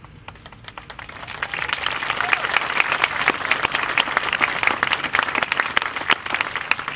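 Audience applauding, many hands clapping together. It builds up over the first two seconds and then stays full.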